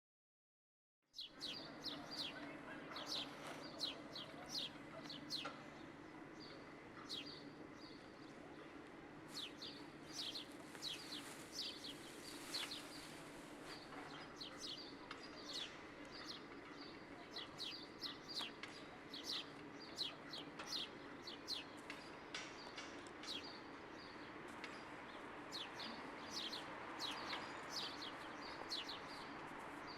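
Birds chirping, many short sharp chirps repeating over a steady low background hum. It begins about a second in, after silence.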